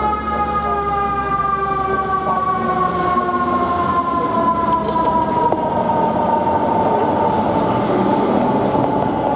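Fire truck's mechanical siren, whipped up sharply just before and then winding slowly down in pitch, over the steady rumble of the moving truck.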